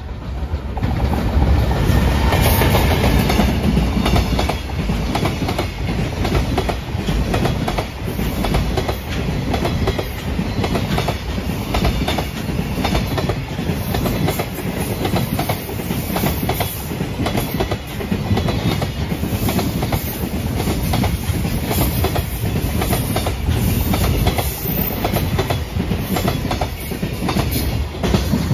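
A JR Freight container train passes close by. The electric locomotive comes first, loudest about a second in, then a long string of container wagons follows, their wheels clacking over the rail joints in a quick, steady rhythm.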